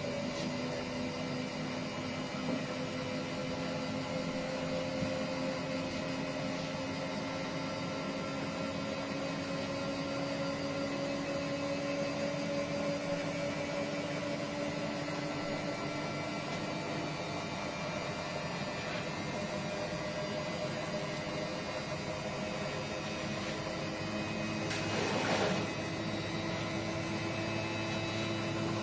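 Hotpoint Ariston washing machine running on its Quick Wash 60 programme: a steady motor hum and whine whose pitch drifts slowly. A brief rushing sound comes near the end.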